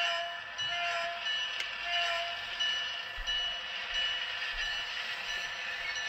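Sound from a model diesel locomotive's LokSound decoder, played through its small onboard speaker: a steady hissing engine sound with a few short chime-like tones about a second apart.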